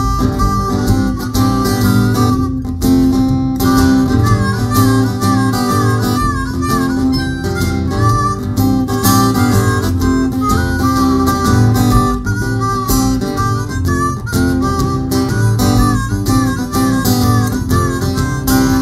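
Harmonica played cupped against a microphone, with bent, sliding notes, over a strummed acoustic guitar accompaniment.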